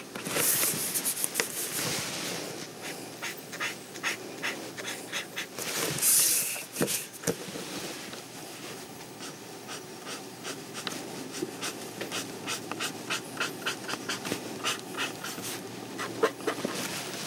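Pen scratching on paper in quick, short repeated strokes as a drawing is inked, with two louder hissing rushes, about half a second in and about six seconds in.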